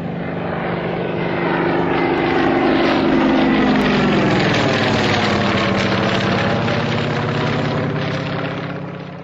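Yak-52's nine-cylinder M-14P radial engine running as the propeller plane flies past, growing louder to a peak about three seconds in, then fading near the end.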